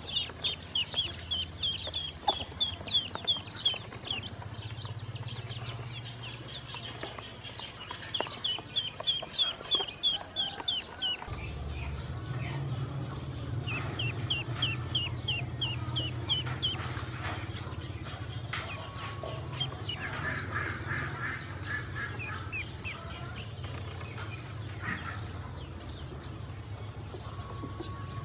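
Ducklings and young chicks peeping: runs of short, high, falling peeps, about three or four a second, in bursts with pauses between.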